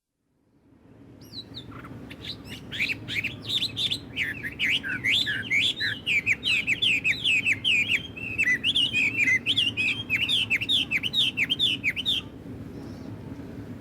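A songbird singing a long, fast run of chirping, warbling notes over a steady low background of outdoor ambience. The song starts about a second in and stops abruptly about twelve seconds in.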